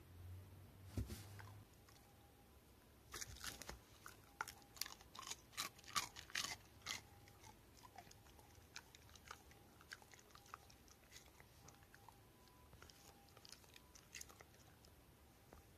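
A Shiba Inu chewing the edge of a taiyaki: a run of crisp crunches from about three to seven seconds in, then sparser, softer chewing clicks. A single knock about a second in.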